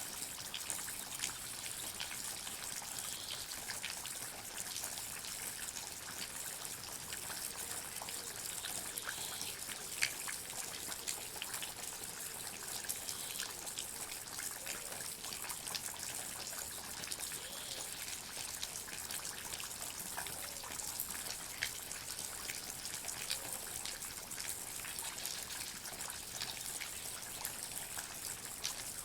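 Water dripping and trickling in a forest: a steady light splashing hiss with many irregular drops, a few of them louder.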